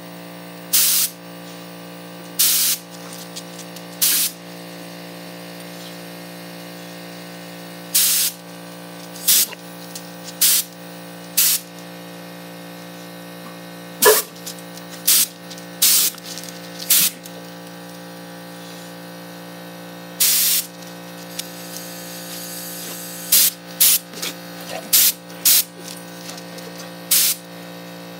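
Short bursts of compressed air hissing from an air compressor's nozzle, about twenty of them, some single and some in quick pairs, over a steady low hum.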